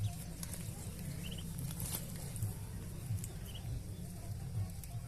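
Two brief runs of quick, faint, high chirps from small birds, one about a second in and one a little past the middle, over a steady low rumble.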